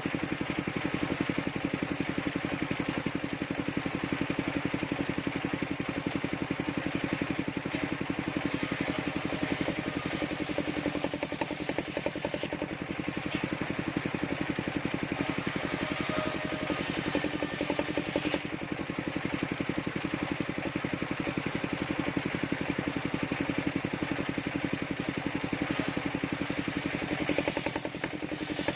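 The engine driving a mobile circular sawmill runs steadily with an even, fast pulse.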